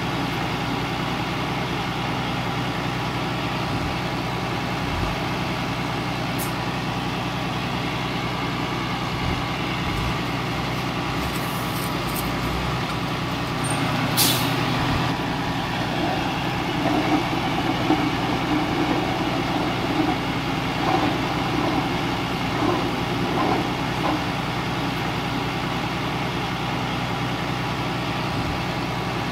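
Diesel engine of heavy earthmoving machinery running steadily, with a short sharp hiss about halfway through and a few louder uneven knocks in the second half.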